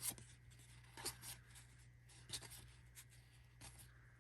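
Faint rubbing and light ticks of hockey trading cards being handled and slid over one another, with a small tick right at the start the loudest and a few softer ones after.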